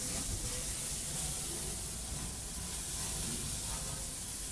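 Faint, steady sizzling hiss of food cooking on a barbecue grill, with low rumble from the camera being handled.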